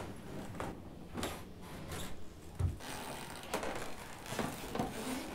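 Soft rustling of clothing with scattered small clicks and knocks as a child's padded coat is pulled on and fastened.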